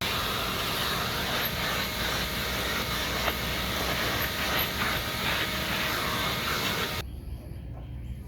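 A vacuum cleaner running steadily as it sucks debris out of a mouse nest behind the car's rear seat, with a few small clicks of debris. It cuts off abruptly about seven seconds in.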